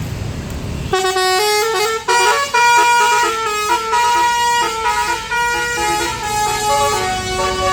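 Indonesian bus 'basuri' musical horn playing a tune of short stepped notes, starting about a second in after a low engine rumble.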